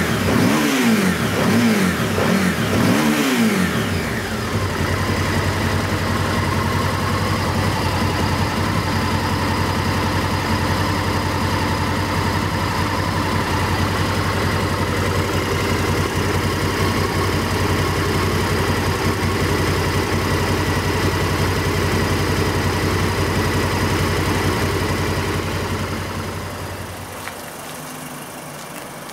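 Honda Varadero XL1000V's 1000 cc V-twin engine revved in a few quick throttle blips, its pitch rising and falling, then settling into a steady idle. Near the end it gives way to the much quieter idle of a Mazda6.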